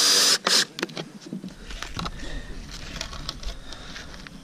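Power drill running with a whine that wavers in pitch, stopping a third of a second in, then a second short burst of the drill; after that, scattered light knocks and clicks.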